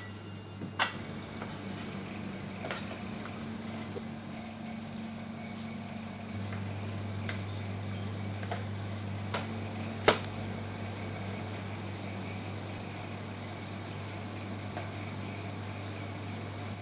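A kitchen knife slicing vegetables on a plastic cutting board: about a dozen irregular sharp taps of the blade on the board, the loudest about ten seconds in, over a steady low hum that grows louder about six seconds in.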